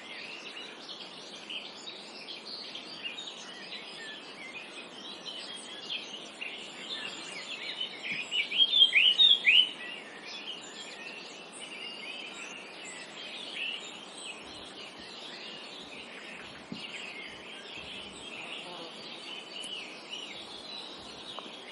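Several small songbirds chirping and singing over a steady background hiss of the forest. About eight seconds in, one bird close by gives a quick run of loud, falling chirps lasting about two seconds.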